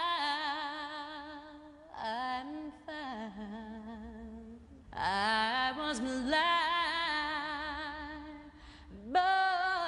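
A woman singing slow, long held notes with vibrato, in several phrases broken by short pauses for breath.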